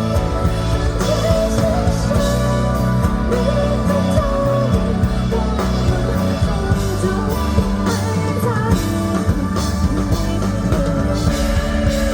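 Live indie rock band playing: a female singer over electric guitar, bass and drum kit, loud and steady.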